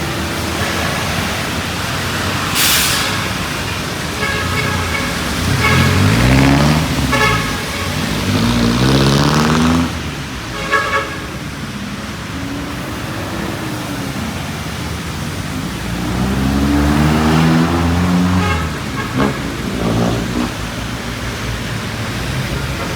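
Road traffic passing by: vehicle engines rise and fall in pitch as they go past, with several short horn toots in the first third.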